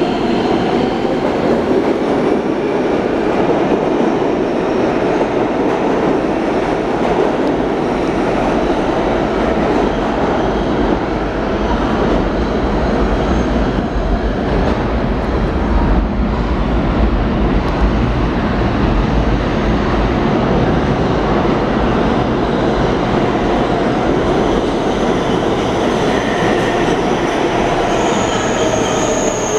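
New York City subway trains (R143 and R160 cars) running through an underground station: a continuous loud rumble of steel wheels on rail, deepest about halfway through. Near the end there is a high whine and a falling tone.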